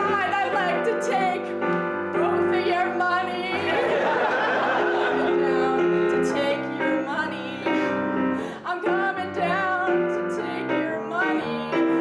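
A woman singing an improvised song with held, wavering notes, accompanied by piano chords on a Nord Stage keyboard.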